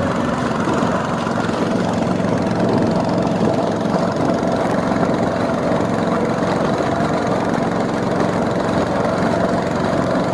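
Small fishing boat's motor running steadily under way, a constant drone with the rush of water and wind around the hull.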